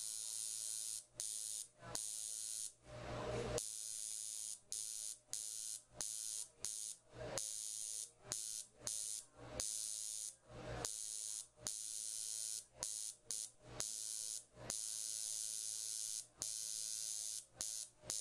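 Permanent makeup machine buzzing as it needles eyeliner pigment into the upper lash line. A steady, high-pitched buzz starts and stops again and again, in runs from a fraction of a second to about a second and a half.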